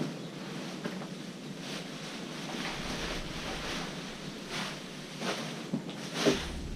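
Packaging wrapping being unwound from a box by hand: a steady rustle with a few small crackles and clicks.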